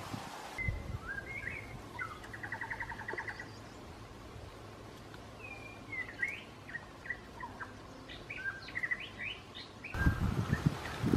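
Small birds calling: rising chirps, a fast trill, then a quick run of short chirps. Near the end, louder scratching and rustling takes over.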